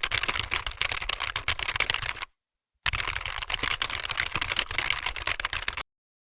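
Fast typing on a computer keyboard, a dense run of key clicks. It stops for about half a second a little after two seconds in, starts again, and cuts off near the end.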